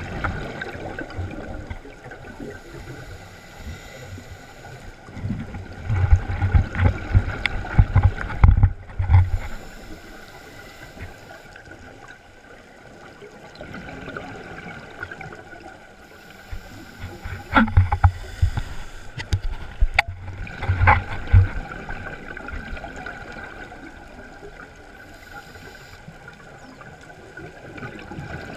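Scuba regulator breathing heard underwater: two long bursts of exhaled bubbles, about six seconds in and again about eighteen seconds in, with a quieter hiss and gurgle between breaths. A few sharp clicks come with the bubble bursts.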